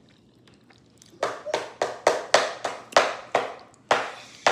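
A child's hands smacking in quick succession, about three to four sharp claps or slaps a second, starting about a second in.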